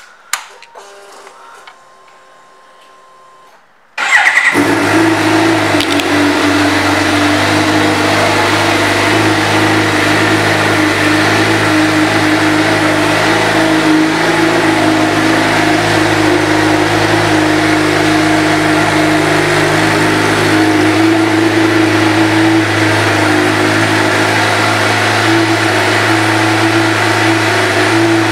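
2015 Suzuki GSX-R750's inline-four engine with an aftermarket exhaust: a few faint clicks, then the engine starts about four seconds in and settles into a steady idle.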